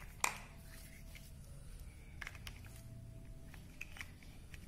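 Large plastic building blocks clicking and tapping together as they are handled and pressed on: one sharp click just after the start, then a few fainter taps, over low room hum.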